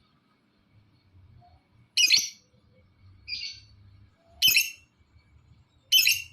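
Lovebird giving short, harsh chirps: three loud calls about two seconds apart, with a softer one between the first two. It is a lure call, used to set other lovebirds calling.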